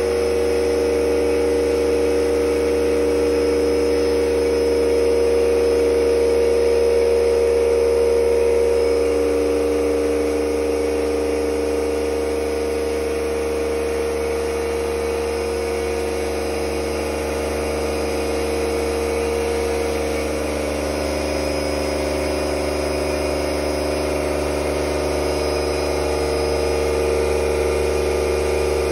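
Pump motor of a handpan hydroforming rig running steadily, building the water pressure that bulges the steel shell into shape. A steady hum whose tones waver slowly.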